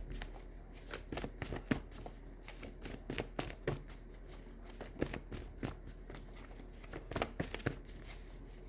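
A deck of tarot cards being shuffled by hand: irregular clusters of short, sharp card snaps and flicks.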